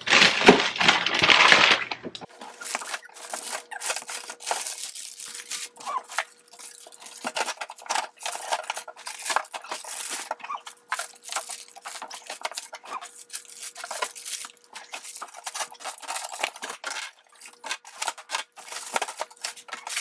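Food packages and containers being handled and moved around in a refrigerator: many small clicks, clinks and plastic crinkles, with a louder rustle in the first two seconds and a faint steady tone underneath after that.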